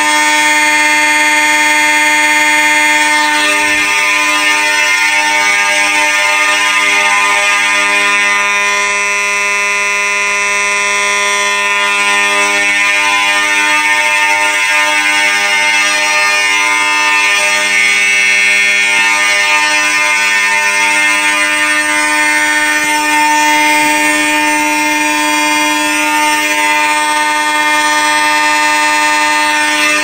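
Fire alarm horns sounding on a continuous (steady, not temporal) signal: a Federal Signal Vibratone horn together with an electromechanical horn, a very loud unbroken blare of several overlapping pitches.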